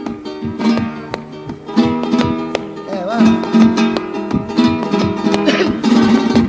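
Flamenco guitar playing without voice: quick plucked single-note runs mixed with sharp strummed chord strokes.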